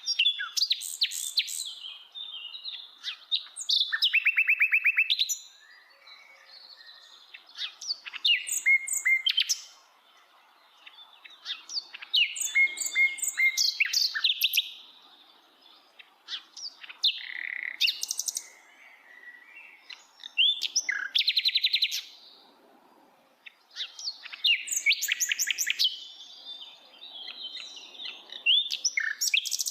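Common nightingale singing: a string of loud, varied phrases, many built of fast trills of repeated notes, each phrase lasting two or three seconds with short pauses between.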